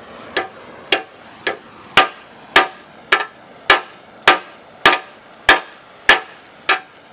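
Hammer striking a torch-heated, burning rubber engine cradle bushing on a Pontiac Fiero's steel engine cradle, driving it out of its sleeve. Twelve steady, loud metallic blows, about one every 0.6 s, each with a short ring.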